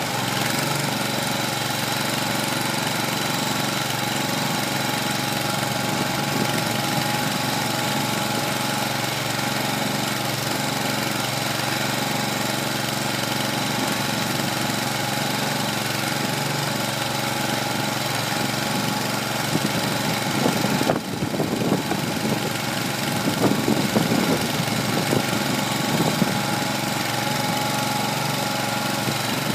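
Small feed mixer's Kohler 25 hp gasoline engine running steadily under load while the tub tumbles hay. About two-thirds of the way in there is a stretch of several seconds of louder, uneven noise over the engine.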